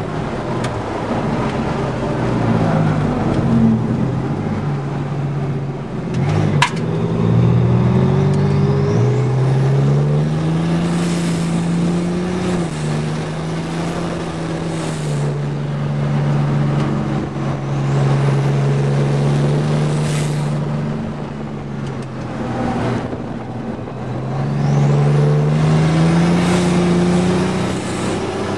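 GMC Syclone's turbocharged V6, heard from inside the cab under hard acceleration on a road course, with wind and road noise. The engine pitch climbs and falls back sharply twice in the first ten seconds, holds fairly steady through the middle, then climbs again near the end. A single sharp click comes about six and a half seconds in.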